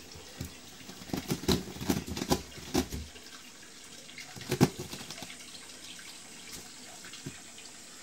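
A cat moving inside a wall cavity, knocking and scraping against the wall: a quick run of knocks about a second in and one sharper knock midway, over a steady hiss.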